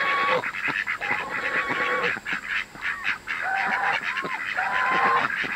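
Domestic geese honking in a string of drawn-out, steady-pitched calls, with ducks quacking among them.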